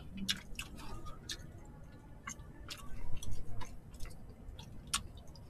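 Close-up eating sounds: chewing with scattered, irregular small clicks and smacks, and chopsticks picking at food in a plastic container.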